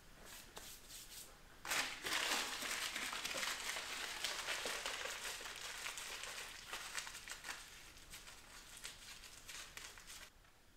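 Dry paper crackling and rustling in a wood stove as a new fire is laid and lit. It starts sharply about two seconds in, fades slowly, and stops abruptly near the end.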